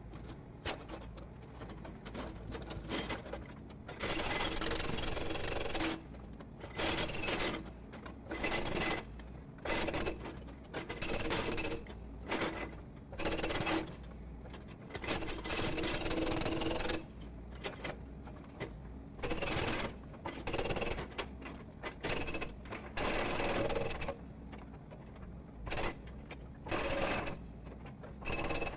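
Hydraulic breaker on a Volvo EC210D excavator hammering blocks of cut-off concrete piling to break them up. It goes in a string of bursts, each from half a second to two seconds long, with the excavator's engine running steadily between them.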